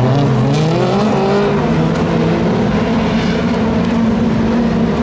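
Engines of several autocross hatchback race cars running hard on a dirt track, their revs rising and falling as they accelerate through the pack, with one engine climbing sharply in pitch in the first second or so.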